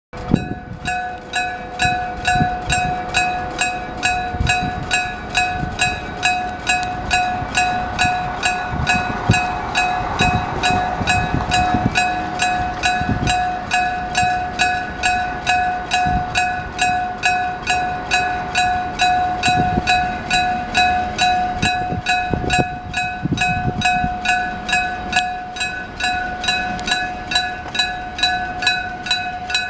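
Electric bell of a Japanese railway level-crossing signal ringing, struck in an even, rapid rhythm of about two to three strokes a second, each stroke with a clear ringing tone. Low rumbles come and go underneath.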